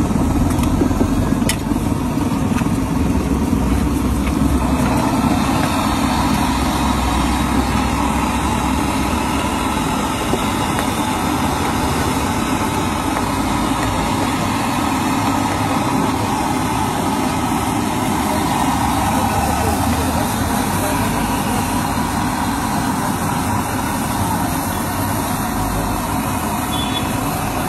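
Steady sizzling hiss from a large flat griddle where boiled eggs, oil and green chilli masala fry and steam after liquid is poured on; the sizzle grows stronger about five seconds in. A vehicle engine runs underneath.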